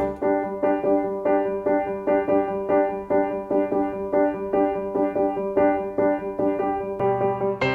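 Background music: a piano-like keyboard playing a steady run of repeated notes, about three a second, with a lower bass note joining near the end.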